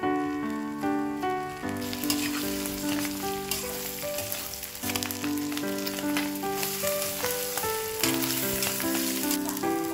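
Tofu rounds and tomato sizzling as they fry in foaming oil in a stainless steel pan, stirred with a metal spatula. The sizzle grows louder about two seconds in. Background music with a simple melody plays over it.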